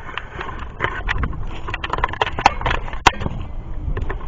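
Footsteps crunching on a hiking trail: a string of irregular short crackles and scuffs over a low rumble.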